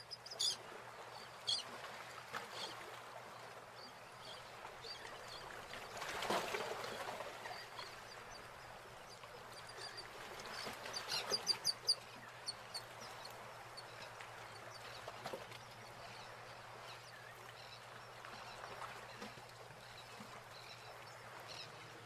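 Faint bird chirps in short scattered bursts, with a quick run of chirps about halfway through, over a low steady background hum.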